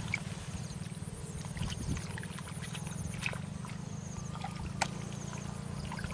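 Hands groping through shallow muddy water, with small scattered splashes and squelches. A steady low motor-like hum and a repeated high chirping run behind it.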